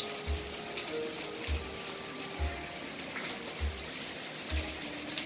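Rain falling as a steady hiss, under background music with a soft low beat about once a second.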